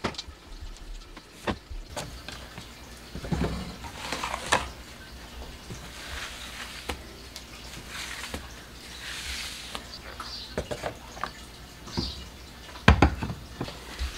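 A kitchen sponge scrubbing a countertop and a glass-top stove, among scattered knocks and clatters of things being handled; the loudest knock comes near the end.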